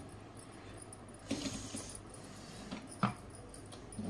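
Light handling of a mixer grinder's jars and fittings: a few soft clicks and knocks, the clearest about three seconds in, over faint room noise.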